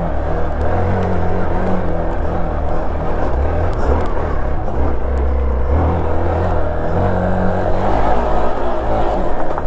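Off-road motorcycle engine running at low revs over rough rocky ground, its note swelling and easing every second or two with the throttle. Occasional faint clicks sound over it.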